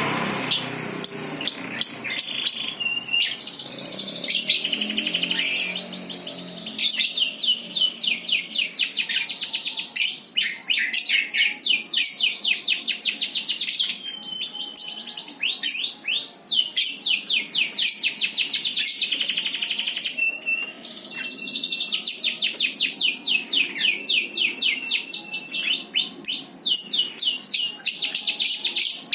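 Songbird song: long, fast trills of repeated high chirping notes, broken by short pauses every few seconds.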